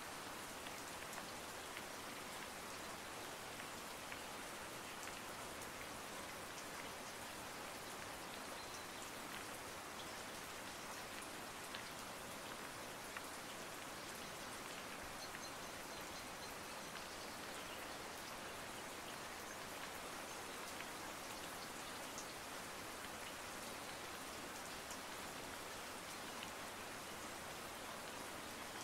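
Steady light rain: an even soft hiss with scattered faint drop ticks.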